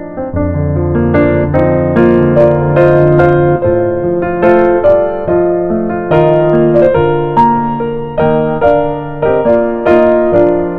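Solo piano music: a gentle melody over sustained bass notes, each note struck and fading.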